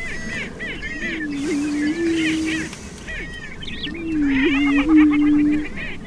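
Greater prairie chickens calling on a lek. There are two low booms, each about a second and a half long with a step up in pitch partway through: one about a second in and one around four seconds. Over them runs a constant chatter of high cackles and whoops from other males. This is the males' courtship display.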